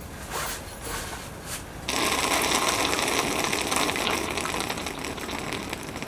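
A few light knocks, then about two seconds in a steady stream of hot liquid starts pouring from a stainless gooseneck kettle into a mug, a loud, even splashing hiss that stops near the end.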